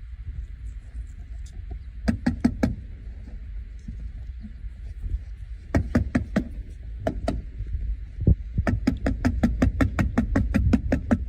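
Nails being driven into roofing: a few scattered sharp strikes, then from about eight seconds in a quick, even run of about four strikes a second, over a steady low rumble.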